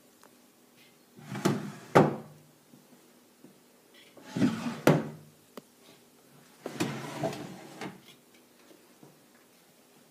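Solid pine drawers sliding in their runners three times, wood rubbing on wood. The first two slides end with a sharp knock.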